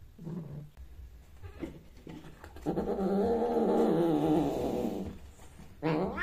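Cat making a long, low growling yowl during mating, lasting over two seconds, after a short low sound near the start. Near the end a louder call begins to rise.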